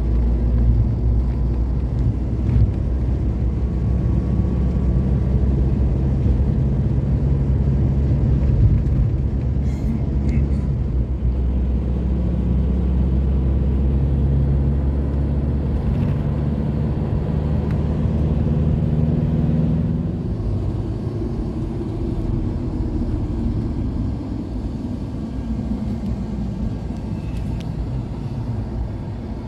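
Road vehicle's engine and road noise heard from inside the cabin while driving: a steady low drone with an engine note. About twenty seconds in the engine note fades and the noise quietens somewhat.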